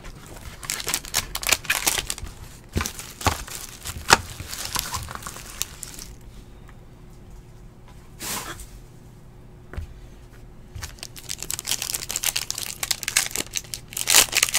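Crinkling and sharp plastic clicks as a trading-card box and its wrapping are handled and opened, then a quieter stretch with a few single crinkles. Near the end, a foil card pack crinkles and is torn open.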